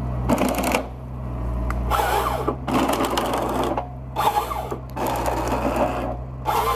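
A WF Trac 2460 forestry tractor's engine runs steadily while its Log Max 928 harvester head feeds a conifer stem through. The feed rollers and delimbing knives strip the branches in repeated noisy bursts, each lasting up to about a second.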